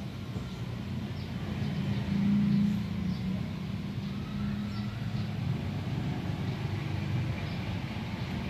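Steady low background rumble, like engine or traffic noise, swelling briefly about two seconds in, with a few faint clicks.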